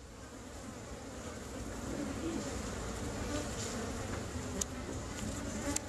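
Honeybees buzzing at the entrance hole of their nest in a wall, a dense wavering hum of many wings that grows louder. Two sharp clicks near the end.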